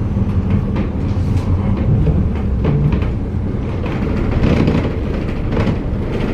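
Heritage bus engine running steadily at low revs as the bus reverses, heard from inside the passenger saloon, with a few short knocks and rattles.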